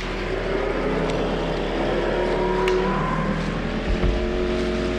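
Small outboard motor pushing an inflatable dinghy along, its running mixed with a steady rush of wind and water.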